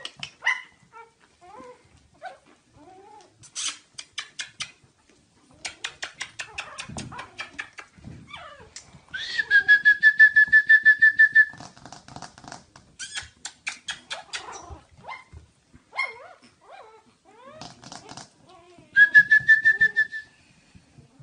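Pug puppies whimpering and squeaking, with short rising and falling cries and two long, high-pitched whines, the first about nine seconds in and the second near the end. Runs of rapid ticks come and go between the cries.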